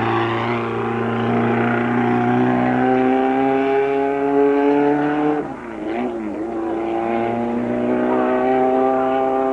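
Racing car engine pulling hard up a hill climb, its revs climbing steadily, then dropping sharply about five and a half seconds in at a gear change before climbing again.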